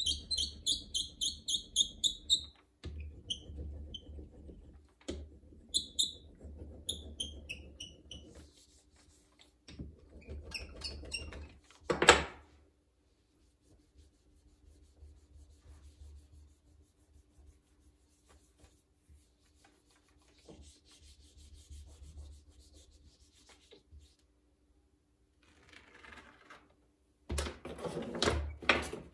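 Texture roller rolled in strokes over a clay slab on a work table, a rubbing rumble with rapid high squeaks during the first strokes. A single sharp knock comes about twelve seconds in, followed by quieter handling, and rubbing strokes return near the end.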